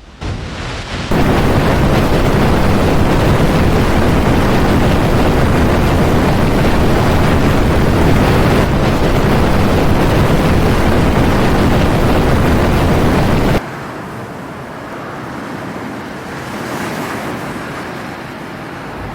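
Strong wind from a snow squall blowing across the microphone as a loud, even rush. It cuts abruptly to quieter wind about two-thirds of the way through.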